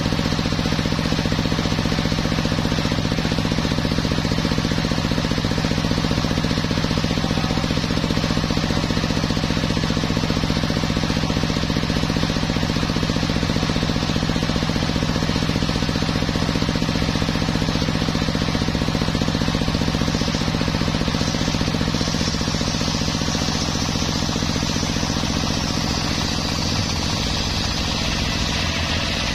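Homemade circular sawmill running, its big circular blade spinning and sawing teak logs: a steady machine hum with the rasp of the cut over it. A brighter, higher hiss comes in over the last few seconds.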